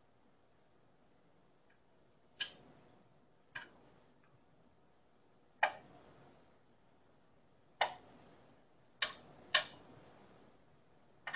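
Craft knife cutting into a bar of soap: seven sharp clicks at uneven intervals, two of them close together near the end, as the blade snaps small chips away.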